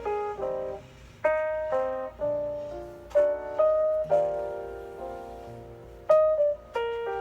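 Background piano music: single notes and chords struck and left to ring in a slow, gentle melody.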